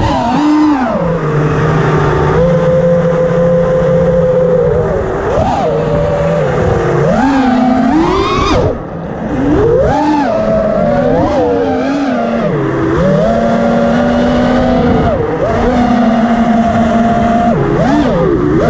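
FPV quadcopter's motors and propellers whining, the pitch holding steady for stretches and then sweeping up and down as the throttle changes. Near the middle it climbs sharply, then drops away briefly as the throttle is chopped, before picking up again.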